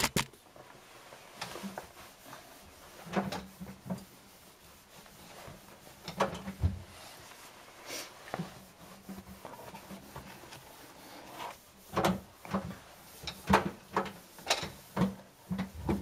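Intermittent knocks, clicks and rubbing of objects being handled, coming thickest in the last few seconds.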